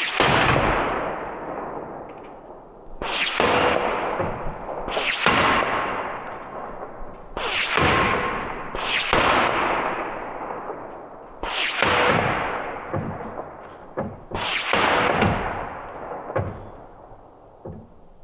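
A .25 caliber Ataman M2 Ergonomic PCP air rifle fires seven shots a few seconds apart. Each is a sharp crack with a ringing tail that fades over a second or two, and a few small clicks fall between the later shots.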